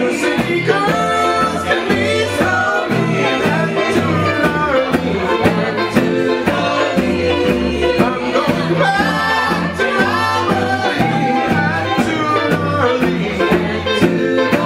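Live country band playing a passage with no sung words: upright double bass notes, drum kit, acoustic and electric guitars, and a sliding lead melody on top.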